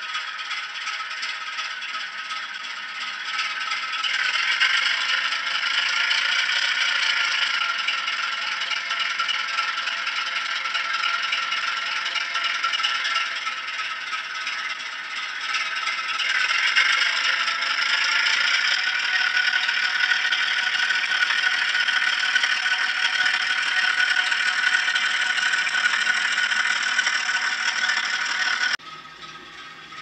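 Hornby HM7000 decoder playing a recorded Class 08 diesel shunter engine through a small model locomotive speaker, a rattly, clattery engine note with no deep bass. The engine notches up twice, at about four seconds and again around sixteen seconds, rising in level and shifting pitch. It drops away abruptly near the end.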